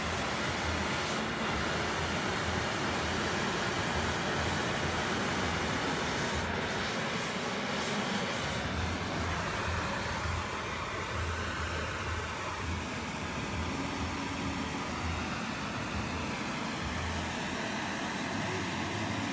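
Gas blowtorch running with a steady hiss as its flame sets a foam joint backing rod alight, which the speaker then calls definitely flammable. A short spell of irregular crackles comes about six to nine seconds in.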